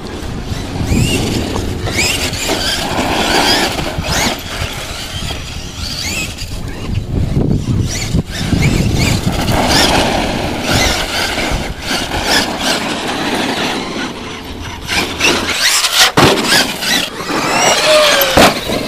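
Radio-controlled monster truck driving hard on a dirt track. Its motor and drivetrain whine up and down in pitch as the throttle changes, over the scrabble of tyres on dirt and gravel. It passes close by near the end, with a few sharp knocks.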